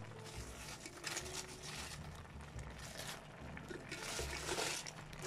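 Noodle broth bubbling and spattering in a wok as it simmers, with small crackles and pops throughout; cabbage leaves are tipped onto the noodles partway through, and the bubbling grows louder about four seconds in.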